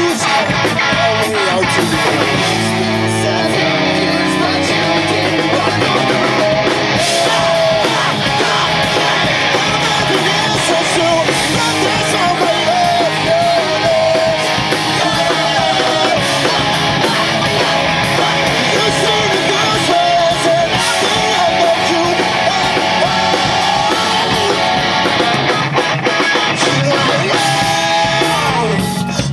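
Live rock band playing loudly, with a sung lead vocal over electric guitars, bass and drums.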